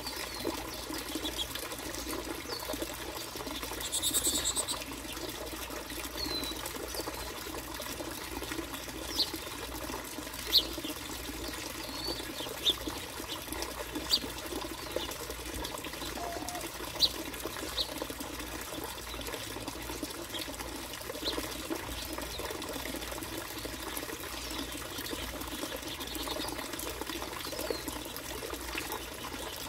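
Finches giving short, high chirps now and then over a steady background of trickling water, with a brief rustle about four seconds in.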